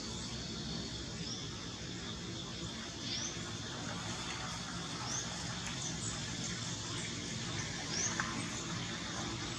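Steady outdoor background hiss, with a short rising bird chirp repeated about every two seconds.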